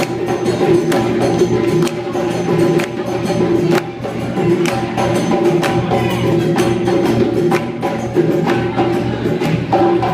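Live Senegalese sabar drumming: a fast, dense rhythm of sharp stick-and-hand cracks on the drums, with a held tone running beneath the strokes.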